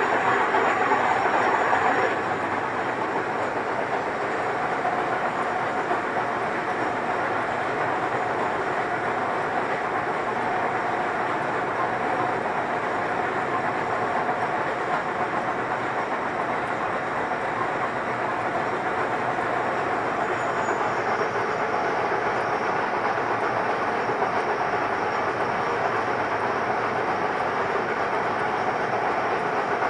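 Heavy 1M63F101 screw-cutting lathe running under power, its gearbox and spindle giving a steady mechanical drone. It is slightly louder for the first couple of seconds, then settles to an even level.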